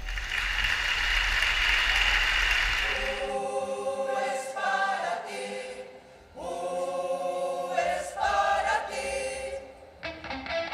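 Applause for about three seconds, then a mixed choir of men and women singing. Near the end, plucked-string music with a quick regular beat comes in.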